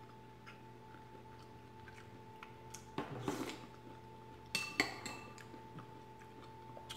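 Spoon scraping and clinking against a white ceramic soup bowl while scooping up broth, with two sharp ringing clinks about four and a half seconds in.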